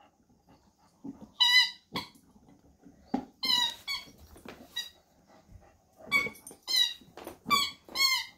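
A dog biting a squeaky rubber ball toy, squeezing out a string of short, high, wavering squeaks in groups, about eight in all. A few dull knocks come between them, from the toy being gripped and pushed about.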